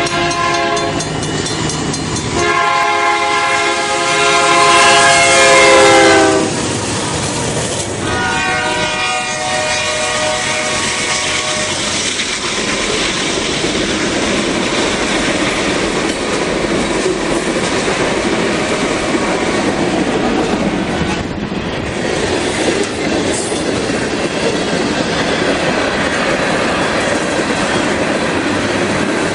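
A BNSF freight locomotive's air horn sounding for a grade crossing: a long blast that drops in pitch near its end as the locomotive passes, then a second blast. After that, the westbound manifest train's tank cars and covered hoppers roll past with a steady rumble of wheels on rail.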